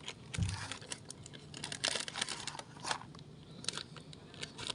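Plastic snack packaging crinkling and rustling as it is handled, in irregular bursts with small clicks and a soft thump about half a second in.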